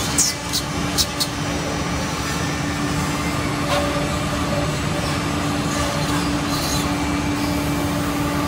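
SM-3725X2 multi-spindle CNC mortising machine running, its row of router spindles cutting mortises into clamped wooden parts: a steady machine noise with a constant hum-like tone, and a few sharp clicks in the first second and a half.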